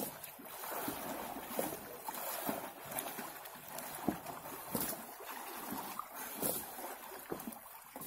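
Pool water splashing and sloshing as a person swims and wades through a frame pool, with irregular sharp splashes over a steady wash of moving water.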